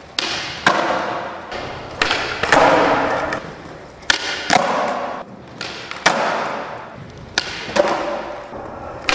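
Skateboard flatground tricks: about five times a sharp tail pop is followed half a second later by the board landing, then the wheels rumble as it rolls away across a smooth floor.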